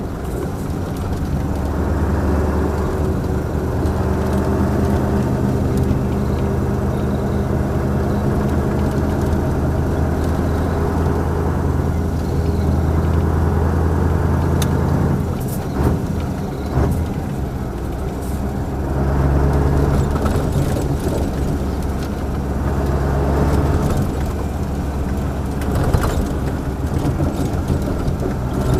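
Mercedes-Benz SK 1748 truck's V8 turbodiesel running loud and steady under load. About halfway through the engine note drops away briefly amid a few sharp clicks, then pulls strongly again.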